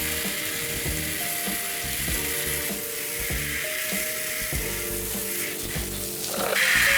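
Background music with a steady beat over a fizzing hiss of water or cleaner being sprayed. A louder spray starts near the end.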